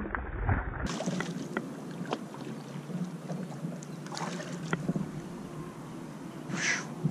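A hooked bass splashing at the surface beside a kayak, then small clicks and knocks with water moving against the hull as it is reeled in, and a short splash near the end.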